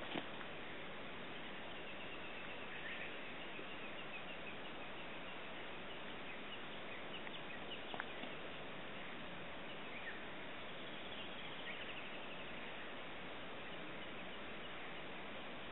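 Steady outdoor background hiss with faint, scattered bird chirps, and a single sharp click about eight seconds in.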